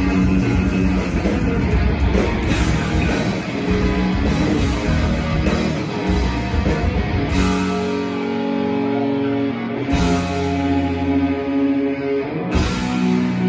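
Live rock band playing with electric guitars, bass and drum kit. About seven seconds in the drums drop away, leaving held guitar chords with a single hit midway, and the full band comes back in near the end.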